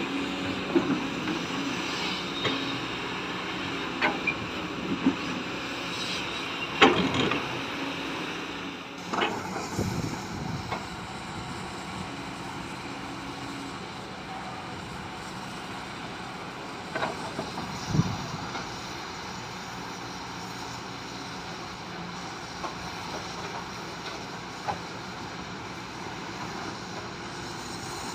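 Steady vehicle running noise with scattered sharp knocks and clanks, most of them in the first half.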